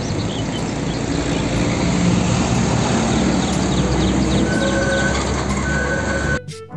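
Road traffic: a heavy diesel car-carrier truck driving past, with steady engine and tyre noise.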